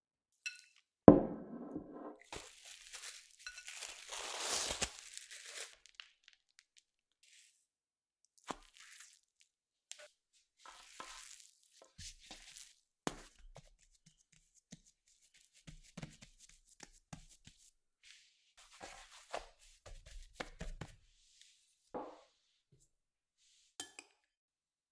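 Hands working stollen yeast dough on a marble counter: a heavy thud about a second in, then a few seconds of rustling, then scattered soft pats and taps as the dough is pressed flat.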